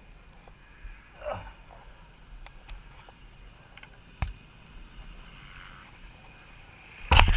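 Low background noise with scattered light knocks and rustles from a helmet-mounted camera moving about, a brief falling whine about a second in, a single sharp knock a little after four seconds, and a sudden loud burst of rustling noise near the end.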